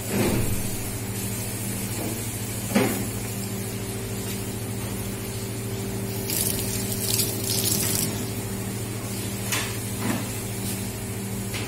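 Steady low hum of a commercial kitchen around a pot of oil heating on a gas range, with a few soft knocks and a brief burst of rustling from about six to eight seconds in as the camera is handled.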